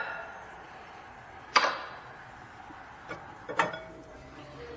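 A few separate knocks and clinks as tools and brake parts are handled: the loudest about one and a half seconds in, ringing off briefly, then a small click and another knock with a short ring a couple of seconds later.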